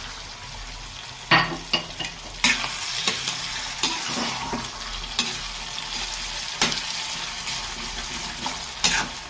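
Pork and mango pieces sizzling in a steel kadai with a little water just added, stirred by a slotted steel spatula that scrapes and gives several sharp knocks against the pan.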